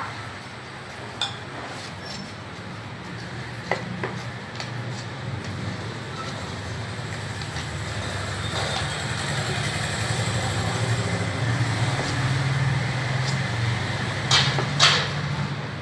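Wooden rolling pin rolling back and forth over a wooden board as paratha dough is rolled out: an uneven low rumble that grows louder toward the end, with a few sharp knocks of wood on wood and two louder ones near the end.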